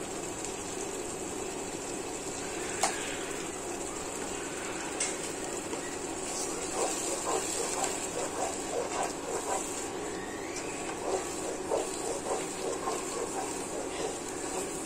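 Wooden spatula stirring and scraping a wet onion-garlic paste as it cooks in a non-stick pot, over a steady hiss from the pan. The soft scrapes and taps come thick from about halfway through.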